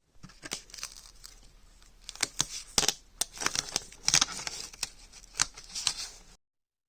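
Irregular crinkling, scratching and sharp clicks of hands working with materials. The sound cuts off abruptly near the end.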